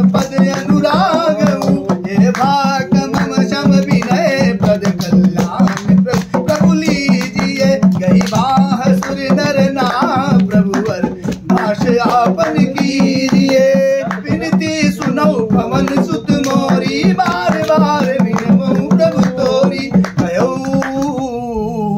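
A man singing a Hindi devotional bhajan while beating quick hand strokes on a dholak, over a steady low drone. Singing and drumming stop just before the end.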